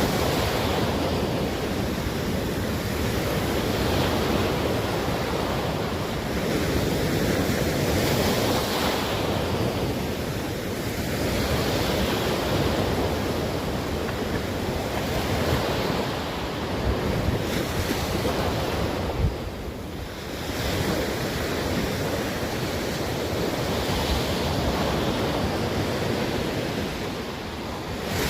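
Atlantic Ocean surf breaking along the shoreline, swelling and easing every few seconds, with wind buffeting the microphone.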